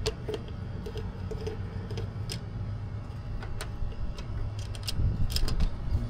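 Scattered light clicks and taps of hand tools and wire terminals being worked on an air conditioner's contactor, over a steady low hum.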